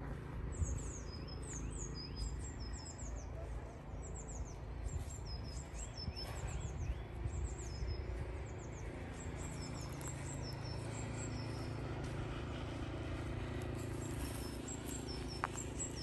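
Songbirds singing in a spring woodland: short, high, downward-sliding notes repeated in quick phrases, over a low steady background rumble.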